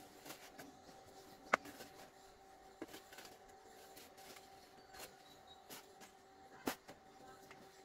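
Scattered faint clicks and knocks, about half a dozen, the sharpest about one and a half seconds in, over a faint steady hum.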